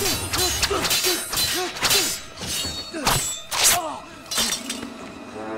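Fight sound effects from a film: a quick run of about ten sharp metallic clashes and hits, over the film's music, which swells into steady sustained tones near the end.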